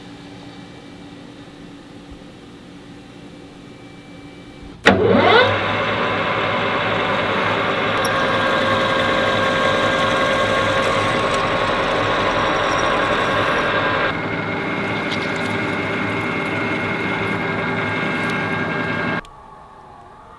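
Metal lathe motor starting up with a brief rising whine about five seconds in, then running steadily while a drill bit in the tailstock bores into the end of a spinning metal rod. The sound drops slightly about two-thirds of the way through and cuts off suddenly near the end.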